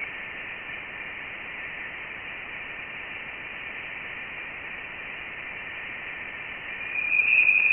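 Voyager 1 plasma-wave data converted to audio: a steady, narrow-band hiss with a faint high tone running through it, growing louder about seven seconds in. It is the electromagnetic plasma-wave signal from interstellar space, made audible.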